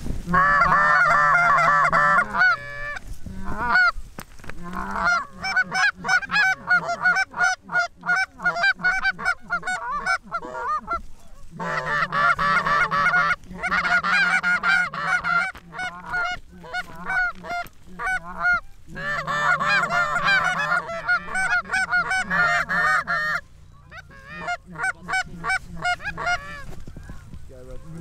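Canada goose honks and clucks, many overlapping in rapid runs that go on for several seconds with short breaks between them.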